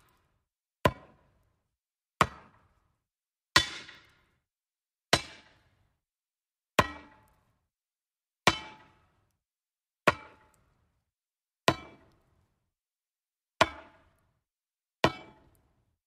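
Metal object striking wood: ten single sharp blows at an even pace of roughly one every one and a half seconds, each with a brief metallic ring as it dies away.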